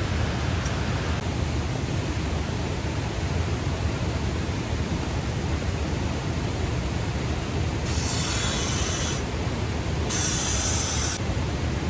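Steady, dense rush of heavy rain mixed with a waterfall. Two brief, brighter hisses rise over it about eight and ten seconds in.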